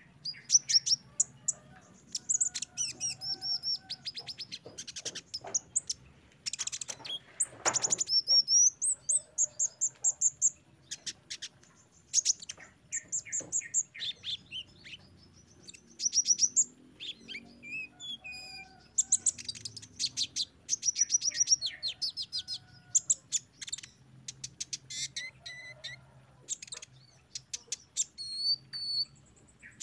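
Male van Hasselt's sunbird (kolibri ninja) singing: quick runs of high, thin chirps and trills in bursts with short pauses between them.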